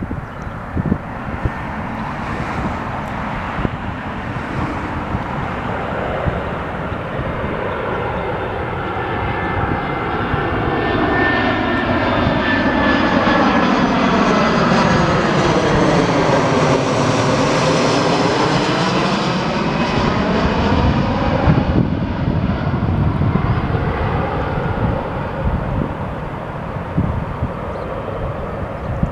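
An easyJet Airbus A320-family jet airliner on final approach passing low overhead, its engines growing louder, loudest about halfway through, then fading. As it passes, the engine noise carries a sweeping whoosh that falls and then rises in pitch.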